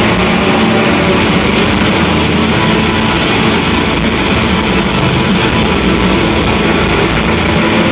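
Loud live band in an arena, heard as a dense, steady wash of sound through a phone's microphone.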